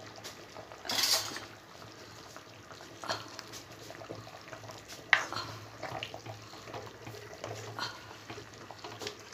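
A wooden spoon stirring thick fish curry gravy in a clay pot: scattered soft knocks and scrapes of the spoon against the pot, the sharpest about five seconds in, with a brief noisy rush about a second in.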